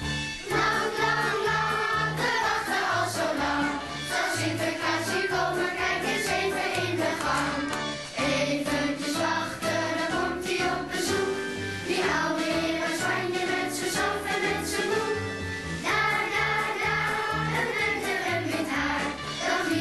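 A group of children singing a Sinterklaas song in chorus over an instrumental backing with a steady, repeating bass line.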